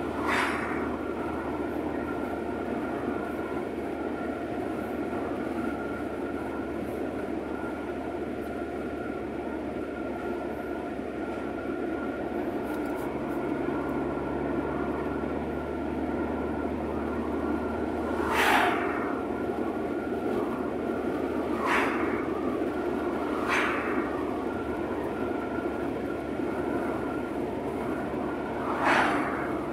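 Steady road and engine noise inside a moving car, with oncoming cars passing by about five times, mostly in the second half.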